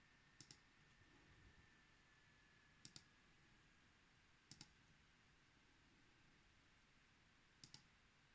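Faint high-pitched electrical whine in a Razer Blade laptop's microphone signal, a steady thin tone that sinks slightly in pitch, over low hiss. Four sharp double clicks break through it.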